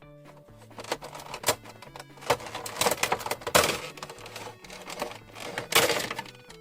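Cardboard box and plastic packaging of a Funko Pop figure being handled and opened: crackling and clicking in several loud bursts over light background music.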